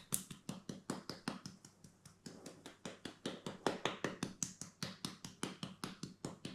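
Paprika shaker being shaken in quick, even strokes, a sharp click at each shake, about six a second.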